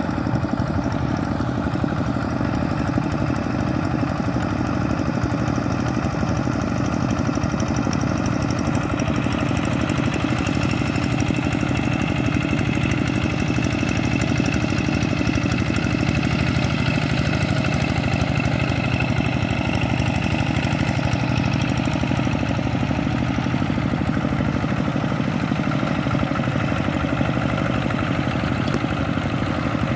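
Single-cylinder diesel engines of two-wheel walking tractors running steadily as they drag levelling boards through a flooded rice paddy.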